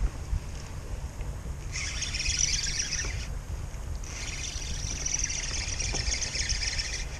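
Fishing reel buzzing in two bursts, one about a second and a half long and the next about three seconds, while a hooked fish is being fought. A low rumble runs underneath.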